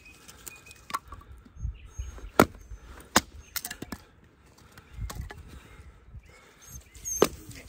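Batoning: a wooden baton striking the spine of a Fallkniven S1 knife driven into wood. Irregular sharp knocks, the loudest about two and a half seconds in, with a few dull thuds between.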